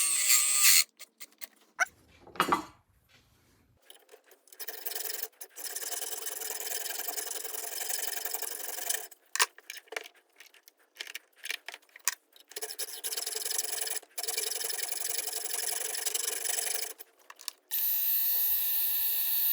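The micro metal lathe's motor whine cuts off within the first second. After a few clicks and a low thump comes a long stretch of steady scraping on the workpiece, broken by short pauses. Near the end the lathe motor starts up again with its whine.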